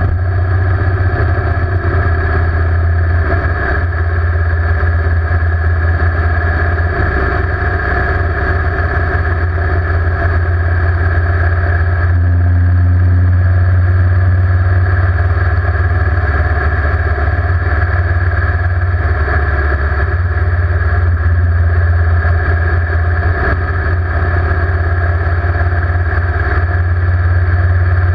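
Motorcycle engine running steadily at road speed, heard from a camera mounted on the bike, with a heavy low rumble of wind over the microphone.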